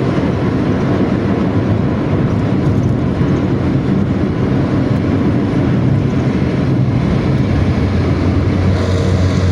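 Intercity bus running with a 'ngorok' (snoring) exhaust, a steady low rumble over continuous road noise; the engine note grows stronger near the end.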